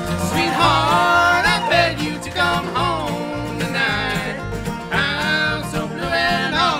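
Live bluegrass band playing: banjo, acoustic guitar, mandolin, resonator guitar and upright bass. A lead melody slides and wavers in pitch over steady plucked bass notes.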